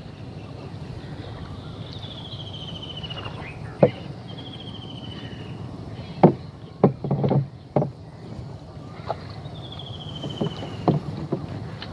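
Small fibreglass boat being poled with a bamboo pole through shallow, weedy marsh water: the pole and hull knock irregularly, with a cluster of knocks about midway. A high falling trill repeats several times behind them.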